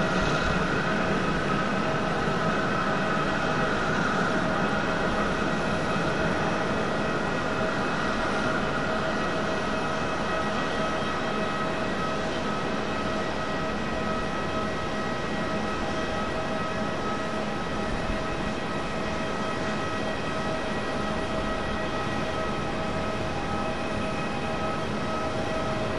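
Steady jet-engine noise of airliners: a broad rushing sound with several high whining tones held throughout, easing slightly in level.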